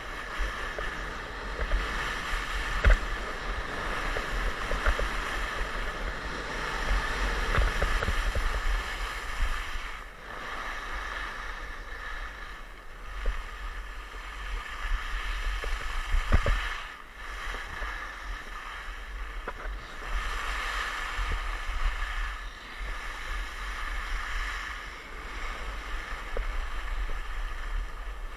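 Skis sliding and carving on groomed piste snow, a continuous scraping hiss, with wind rumbling on the microphone and a few sharp knocks.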